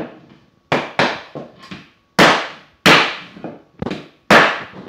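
Claw hammer striking a 2x4 wood block held against the edge of a luxury vinyl plank, knocking the planks together to close the gaps in the seams. About eight sharp knocks at irregular intervals, each dying away quickly.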